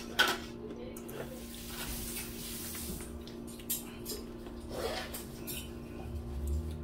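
Forks clinking and scraping on plates and aluminium foil food trays during a meal, with one sharp clink about a quarter second in and scattered lighter clinks after.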